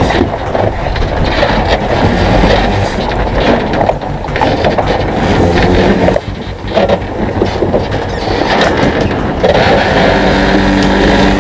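Heavy truck driving on a gravel mountain track: diesel engine running under road and chassis noise from the tyres and trailer, dipping briefly a little after halfway.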